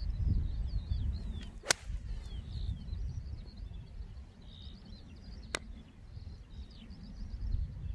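Golf iron striking the ball on a tee shot: one sharp crack a little under two seconds in, with a fainter click about five and a half seconds in. Gusty wind rumbles on the microphone and birds chirp throughout.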